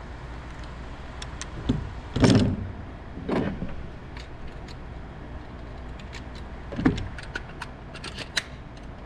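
Four dull, muffled thumps of gunfire at a shooting range, the loudest about two seconds in, with light clicks and rattles between them over a steady low background hum.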